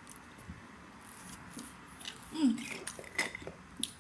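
Close-up eating sounds: chewing with scattered small clicks and crackles, and a short low falling vocal sound, like an "mm", about two and a half seconds in.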